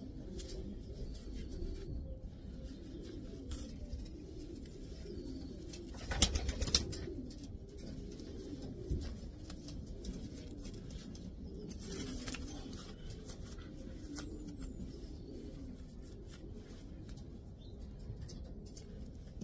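Racing pigeons cooing over and over, with a brief loud clatter about six seconds in.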